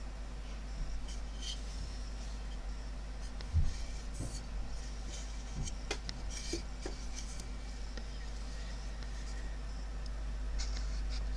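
A carved wooden spoon handled and turned over on a burlap cloth: light rubbing and small knocks, with one louder thump about three and a half seconds in. A steady low hum runs underneath.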